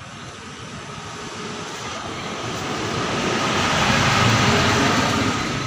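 A vehicle going by: a broad engine-and-road noise that grows steadily louder, peaks about four seconds in, then begins to fade.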